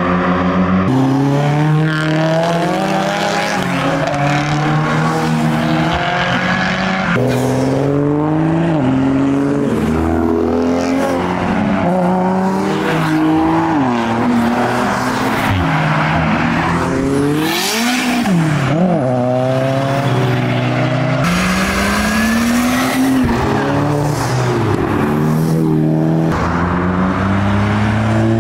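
Modified car engines revving and accelerating away one after another. The pitch climbs and drops back repeatedly as each car pulls off and blips through the revs, with abrupt changes where it cuts between cars.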